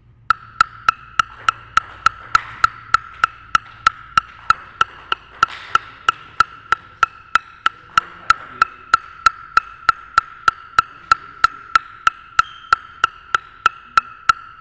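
Table tennis ball bounced steadily on a bare wooden DHS Hurricane King Wang Chuqin blade, about three to four taps a second. Each tap rings with the blade's own pitch, around 1335–1357 Hz, the mark of a relatively soft blade.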